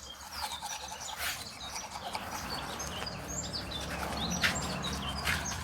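Several small birds chirping in short, high calls, with a few brief knocks or rustles mixed in.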